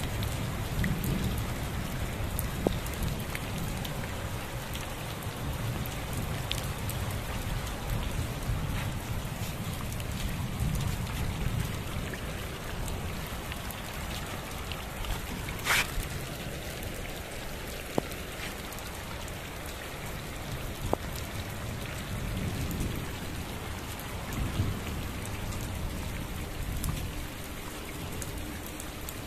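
Heavy monsoon rain pouring steadily, a dense hiss of drops striking the ground, with a low rumble underneath that is strongest in the first half. A few sharp drop taps stand out, the loudest just past halfway.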